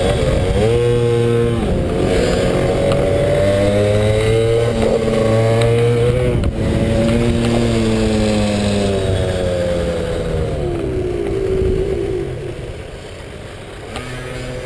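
Pit bike's single-cylinder engine revving hard and shifting through the gears, the pitch climbing and dropping with each shift. About ten seconds in, the revs fall away and the engine quietens as the bike slows.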